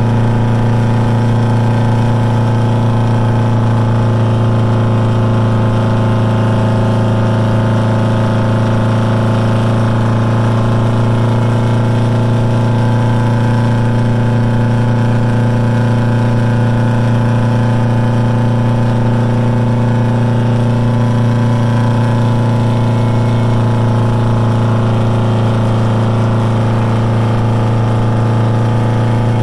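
Old V8 diesel truck engine heard from inside the cab while driving, running at a steady engine speed with a deep, even drone.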